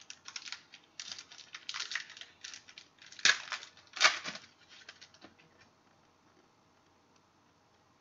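Trading cards and their packaging being handled: a run of crinkles, rustles and card slides, the two loudest about three and four seconds in, fading out after about five and a half seconds.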